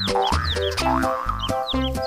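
Playful background music with a bouncy bass line and a sliding tone that rises about twice a second.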